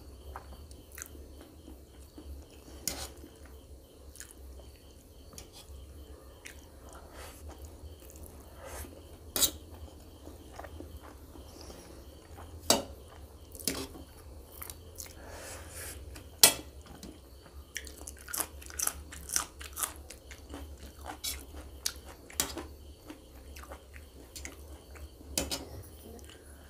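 Close-up mouth sounds of eating instant noodles: chewing and sucking in strands, with sharp clicks now and then as the steel fork taps the metal plate.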